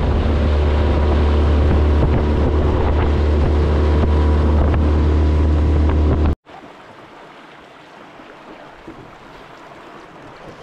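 Outboard motor pushing an aluminium dinghy along, a loud steady low drone with water rushing past the hull. It cuts off abruptly about six seconds in, leaving much quieter wind and water noise.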